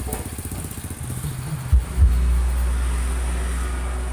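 Honda Supra motorcycle's single-cylinder four-stroke engine idling with an even pulsing beat. About two seconds in it picks up to a louder, steadier note and holds there.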